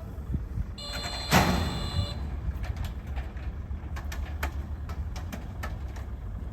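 Racehorse starting gate opening: a bell rings for about a second, and partway through the front doors spring open with a loud clang. Then a steady low rumble with scattered light clicks.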